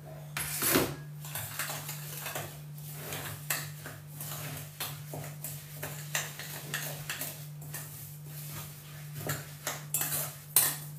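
Metal spoon scraping and clinking against a mixing bowl as rolled oats are stirred into a butter, sugar and egg mixture, in irregular strokes with a louder knock about a second in. A steady low hum runs underneath.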